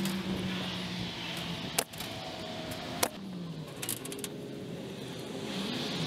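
Pneumatic nail gun firing twice, two sharp shots about a second apart, over a steady low hum.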